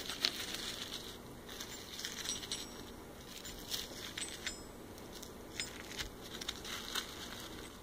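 Extruded .999 fine silver bars being handled and set down, clicking and clinking against one another, with a few brief metallic rings around two and four seconds in. Faint.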